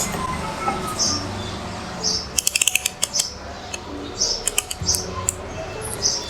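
Small birds chirping now and then, with a quick run of about eight sharp clicks around two and a half seconds in, over a low steady hum.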